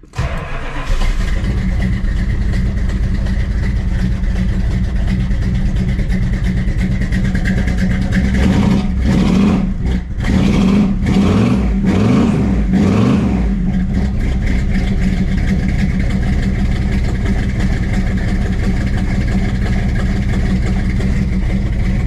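A 1968 Dodge Charger's cold V8 catches and starts right at the beginning, then runs steadily through its freshly rewelded exhaust. It is revved several times in the middle, then settles back to a steady idle.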